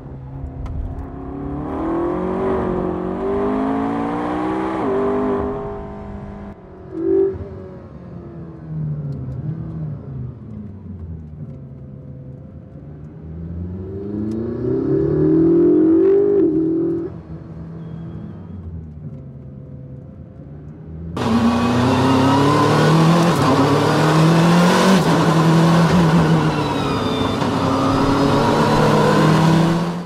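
McLaren 12C's 3.8-litre twin-turbo V8 revving up and down through gear changes on track, its pitch rising and falling over several stretches. About two-thirds of the way through it turns much louder and fuller, and it cuts off at the end.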